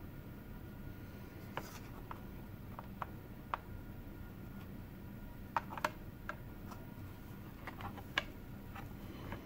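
Light plastic clicks and taps, about a dozen in scattered clusters, as the mirror door on a 2007 Honda CR-V sun visor is flipped open and pressed shut on its broken hinge, now rebuilt with a nail as the pivot pin and JB Weld.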